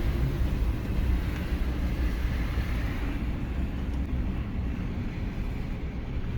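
Steady running noise of a Mitsubishi Pajero iO on the move, a low engine rumble and road noise heard from inside the cabin.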